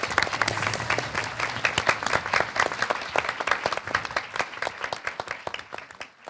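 Audience applauding, many hands clapping, gradually fading away toward the end.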